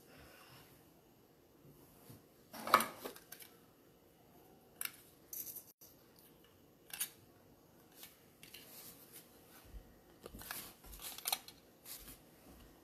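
Scattered short clicks and rustles of a handheld phone being handled close to its microphone, in a quiet room. The loudest click comes about three seconds in, and several more come in quick succession near the end.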